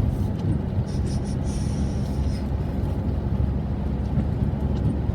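Steady road and engine noise heard from inside a moving car's cabin, with a low hum in the first couple of seconds and a few faint high squeaks about a second in.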